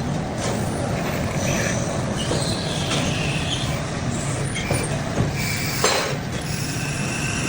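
Metal lathe running with steady machine noise, with short high-pitched whines coming and going and a few sharp clicks.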